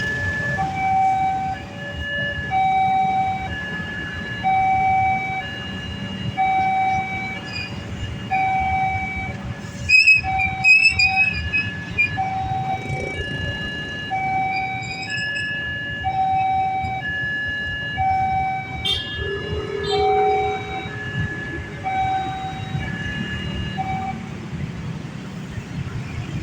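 Railway level-crossing warning siren sounding a two-tone up-and-down wail, switching between a higher and a lower tone about once a second. The siren's tone has changed on its own from its usual warning sound.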